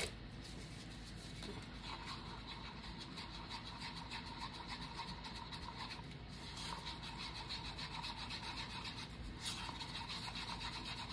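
Stir stick scraping around the inside of a paper cup, mixing pigment into epoxy resin: a steady, rapid scratchy rubbing.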